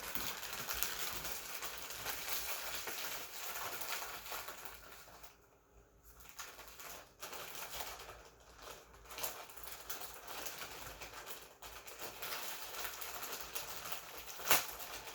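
Plastic packaging rustling and crinkling as it is handled and unwrapped, with a short quiet pause midway and a sharp click near the end.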